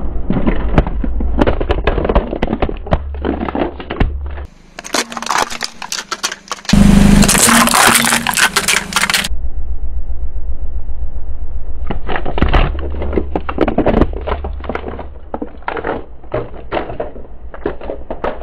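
A car tyre rolling over a toy truck and trailer, the plastic cracking and snapping in many quick bursts with grit crunching under the tread, loudest about seven to nine seconds in. A steady low rumble from the car runs underneath.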